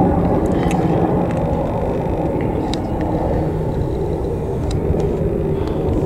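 Sikorsky S-92 search and rescue helicopter flying past overhead: a steady low rumble of rotors and turbines.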